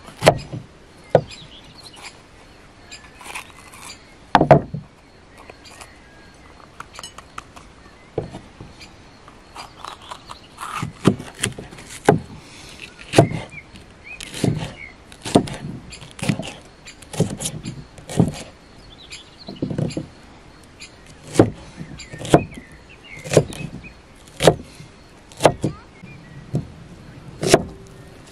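Large kitchen knife slicing green peppers on a wooden log-slice cutting board: sharp knocks of the blade on the wood, irregular at first, then about once a second.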